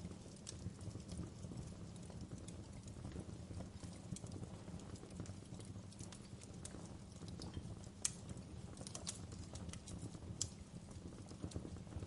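Wood fire crackling in a fireplace: irregular sharp pops and snaps over a low, steady rumble of the flames, with a couple of louder pops in the second half.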